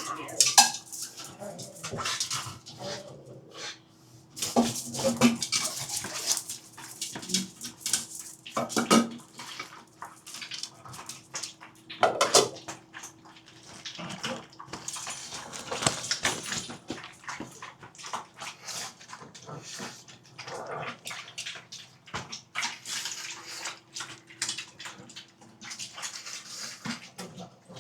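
Pugs eating from their food bowls: a steady run of short, wet eating clicks and clinks against the bowls. A faint steady hum sits underneath.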